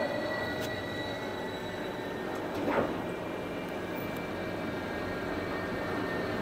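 Electric tram stopped at the platform, its electrical equipment giving off a steady high whine over street noise, the tone having just settled from the falling pitch of its braking. A brief louder sound comes a little under three seconds in.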